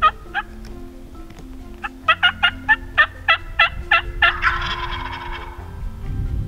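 Wild turkeys calling: two short notes at the start, then a run of about nine yelps at a little over three a second, followed by a gobble about four and a half seconds in.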